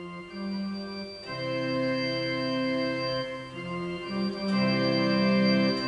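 Electric guitar played through a polyphonic guitar synthesizer set to a pipe organ sound: sustained chords of several held organ-like notes, moving to new notes every second or so.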